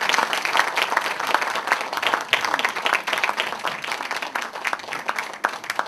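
Audience applauding, a dense clatter of many hands clapping that thins out a little toward the end.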